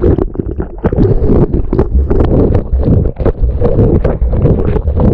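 Churning water rushing and knocking against a waterproof action camera as it plunges through spray and foam: a dense, muffled rumble broken by many irregular thuds.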